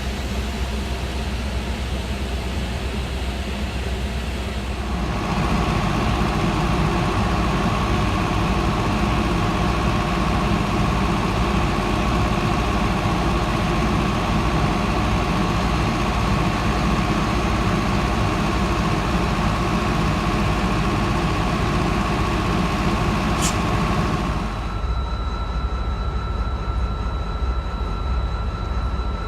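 Amtrak train's diesel locomotive running with a steady low rumble. About five seconds in, a louder steady engine drone with a hum comes in and holds, then drops away near the end.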